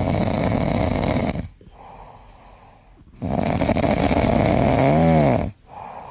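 A dog snoring: two loud snores with a quieter breath between them, the second ending in a brief squeak that rises and falls in pitch.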